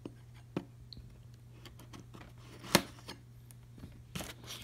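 Scattered light taps and clicks from handling a cardboard box, with one sharp tap a little under three seconds in and a few more near the end.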